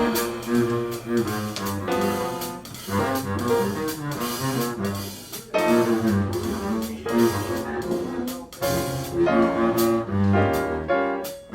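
Live jazz with the double bass to the fore, playing a moving line of notes, and light cymbal or percussion strokes over it.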